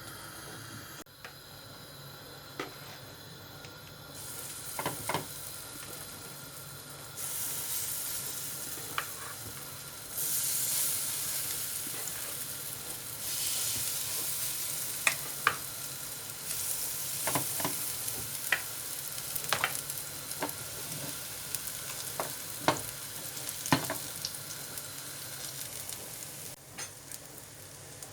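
Food frying in a pan, with a steady sizzle that steps louder and quieter several times, and sharp clicks scattered throughout.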